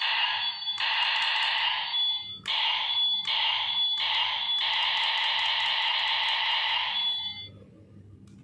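Electronic sound effect from a DX Attache Arrow toy bow's built-in speaker: a harsh, steady-pitched tone in uneven pulses with short gaps, then held for about two and a half seconds before cutting off about a second before the end.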